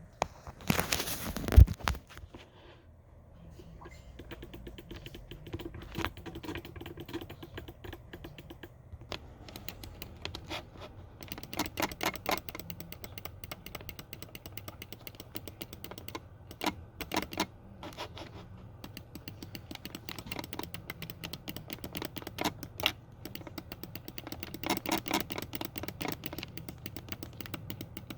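Computer mouse buttons clicked over and over in quick, uneven runs of short plastic clicks. A louder knock and rustle comes about a second in.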